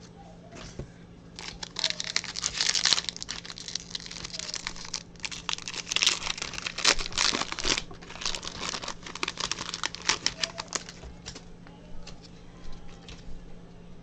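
Foil wrapper of a Topps baseball card pack being torn open and crinkled, a dense run of crackles that starts about one and a half seconds in and dies away about three seconds before the end.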